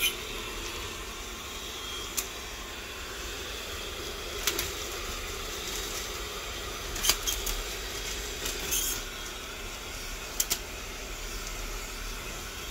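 AVC 12 V DC centrifugal blower fan running with a steady airy hiss, its airflow fluttering strips of paper that give several brief rustles.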